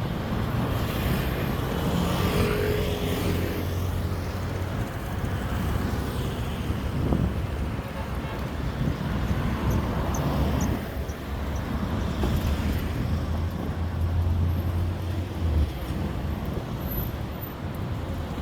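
City street traffic: cars and buses running past, with a low, steady engine hum that swells as vehicles go by.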